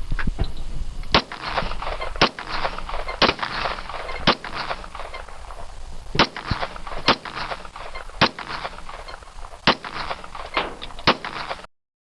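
Glock 17 9mm pistol firing a string of about nine shots, roughly a second apart with a longer pause near the middle. Each shot is followed by an echoing tail.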